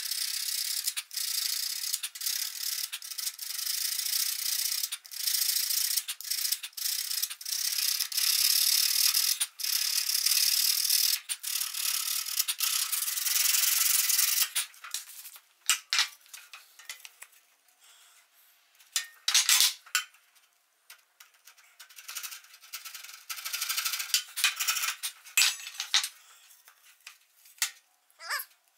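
Sandpaper rubbed by hand along the cut edge of primed MDF base trim, a dry scratchy hiss in rapid back-and-forth strokes. The rubbing runs almost without pause for about the first half, then comes in shorter, separate strokes with quiet gaps.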